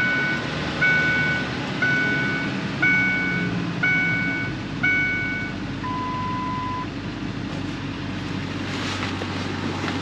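Ford Ranger's 2.3-litre four-cylinder engine idling just after start-up on a new coil pack, spark plugs and wires, running smoothly. Over it, the truck's warning chime rings a two-note ding about once a second, stops after about five seconds, and then gives one lower, longer tone.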